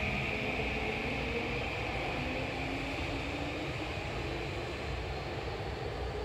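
A Tokyu 2020-series electric train pulls out of the station: a low rumble under motor tones that slowly rise in pitch.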